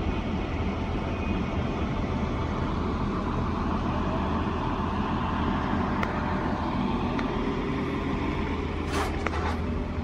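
Hydraulic piling rig's diesel engine running steadily with a low drone, and a few short sharp clicks about nine seconds in.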